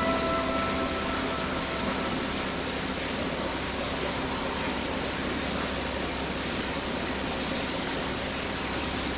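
Steady, even hiss that does not change, with the last held notes of music fading out in the first two seconds.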